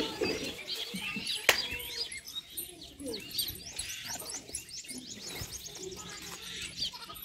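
Small birds chirping and calling, with a fast run of repeated high chirps in the middle. One sharp knock about one and a half seconds in.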